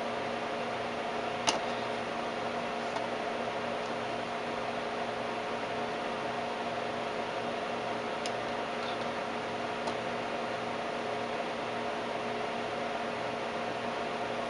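Steady electrical hum over a fan-like hiss from a running Tektronix 549 vacuum-tube oscilloscope. A sharp click comes about a second and a half in, and two fainter clicks later on.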